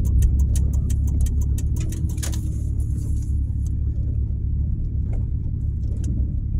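Car driving slowly, heard from inside the cabin as a steady low road rumble. A fast, even ticking, about four ticks a second, stops about three seconds in, typical of the turn-signal relay cancelling as the car completes its turn.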